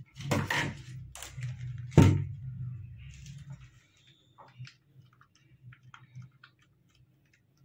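A sharp knock about two seconds in, after a few brief rustles, followed by scattered faint clicks.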